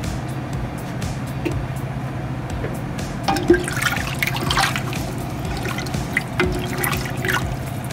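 A spoon stirring a pot of broth with chopped carrots and celery, the liquid sloshing and splashing irregularly from about three seconds in.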